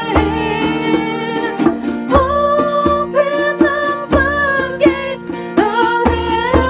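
Music: a song with a singing voice over plucked guitar, with a steady low beat underneath.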